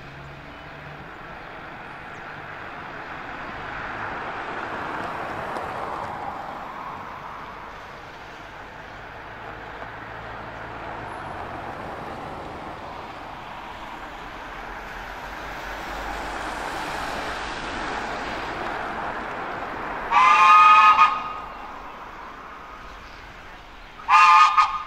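Steam whistle of Baldwin tank locomotive No. 778, sounded for a road level crossing: a blast of about a second, then a shorter one a few seconds later, each a chord of several tones. Before them, a steady outdoor rumble swells and fades as the train approaches.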